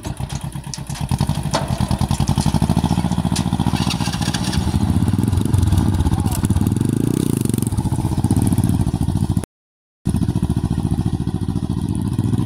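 Engine of a small farm tractor hauling a trailer of rice sacks, chugging with a fast even beat and revving up briefly about seven seconds in, with a motorcycle engine running alongside. The sound cuts out for about half a second near the end.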